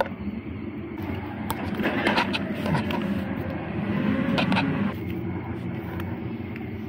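A steady low mechanical hum, like a running engine, with paper and sticker sheets rustling and crinkling in hand a few times.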